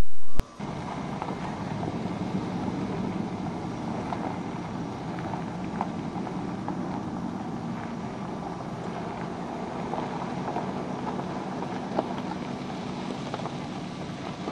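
Steady engine and road noise of a vehicle driving, with a few light knocks and rattles and one sharper knock about twelve seconds in.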